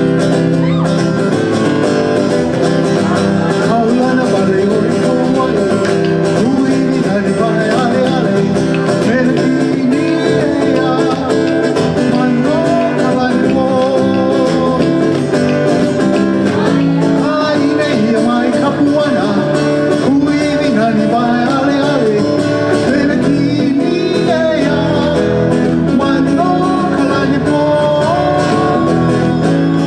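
Music with plucked guitar-like strings and a singing voice.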